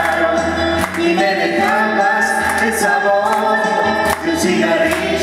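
A woman and a man singing a duet into microphones over musical accompaniment with a regular beat, their held notes overlapping.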